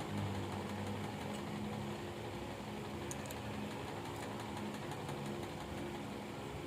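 Steady low machine hum with a constant pitch.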